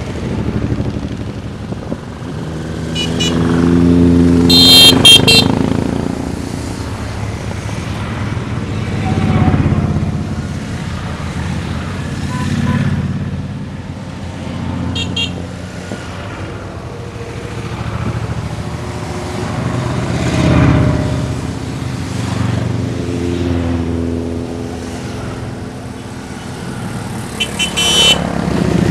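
Motorcycles riding past one after another in a long column, each engine swelling and fading as it goes by. Short horn beeps sound in small bursts, the loudest about five seconds in, again about fifteen seconds in, and near the end.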